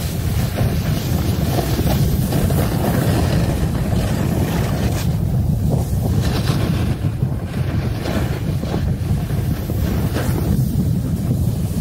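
Wind buffeting the microphone as a snowboard rides down a slope: a steady, gusting rumble, with a lighter hiss of the board sliding over snow.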